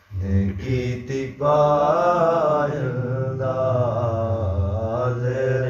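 A man's voice chanting a noha, a Shia lament for Hussain, unaccompanied. A short phrase after a brief breath is followed by one long, wavering held line.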